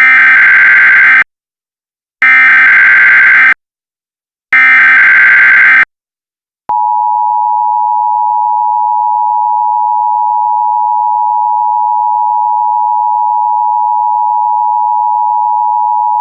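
Emergency Alert System signal: three bursts of digital SAME header data tones, each about a second long with a second's gap between them. Then the steady two-tone attention signal (853 and 960 Hz) starts about seven seconds in and holds, announcing an alert message.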